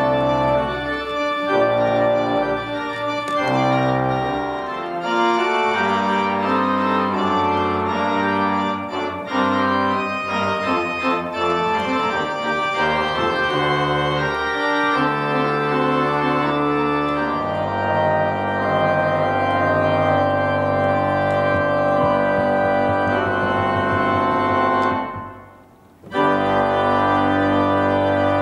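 Church organ played on manuals and pedals: full held chords over a low pedal bass, changing every second or so. Near the end the sound briefly drops away, then a new chord comes in and is held.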